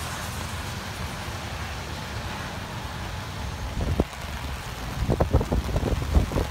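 Wind buffeting the microphone in a steady low rumble outdoors in stormy weather. About four seconds in there is a single knock, and near the end a quick run of low thumps and knocks.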